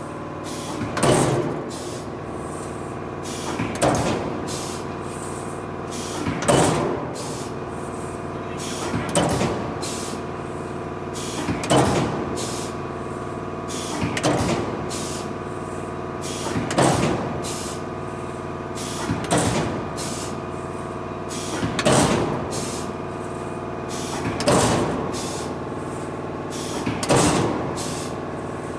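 CNC turret punch press running through a cycle: a steady machine hum, with a whine and clatter that swells and fades about every two and a half seconds, and sharp clicks in between.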